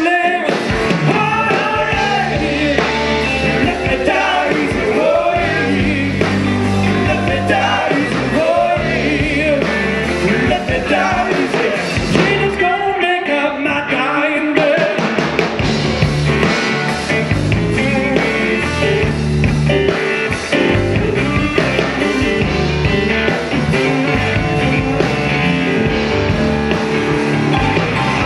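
Live blues-rock band playing, with a male lead vocal over guitars, bass guitar, drums and keyboards.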